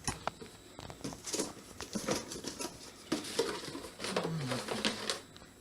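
PC power supply and its cables being handled and packed into a box: a scatter of light clicks, taps and rustles.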